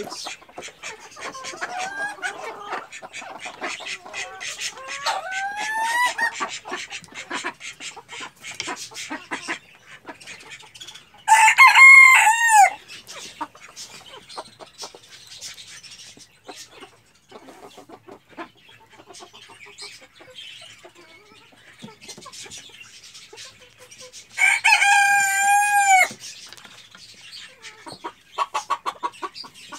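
A rooster crowing twice, once about eleven seconds in and again about twenty-five seconds in, each crow lasting about a second and a half, over hens clucking and small scratching and clicking sounds from the birds moving about the coop.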